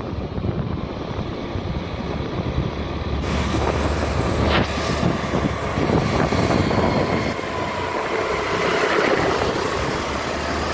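Wind rushing over the microphone of a phone carried on a moving scooter, with scooter engines and road traffic running underneath; the noise gets brighter a few seconds in.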